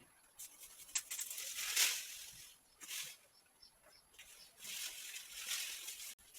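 Rustling and light clicking of something being handled, in two stretches, the first about half a second in and the second about four and a half seconds in.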